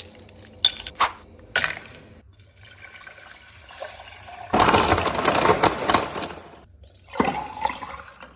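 Blender churning a watery mixture: a few sharp knocks about a second in, then a loud swirling, gushing stretch of about two seconds past the middle and a shorter one near the end.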